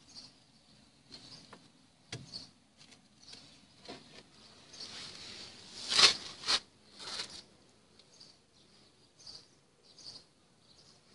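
Handling noise from a handheld camera: scattered rustles and small clicks, with two louder knocks about six seconds in.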